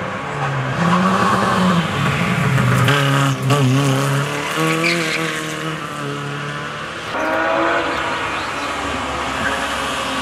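Rally car engines at high revs: a Lada saloon's engine rising and falling in pitch as it drives through and past, then, after an abrupt change about seven seconds in, a BMW E36 coupé's engine approaching.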